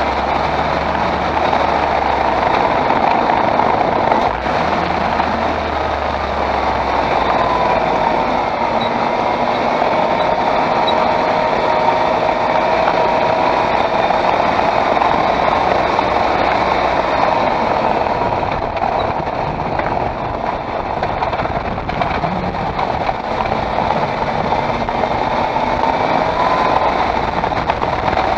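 Skoda Octavia 1.8 TSI with a seven-speed DQ200 DSG gearbox running, a steady mix of engine and road noise with a pitched hum that drifts slowly up and down.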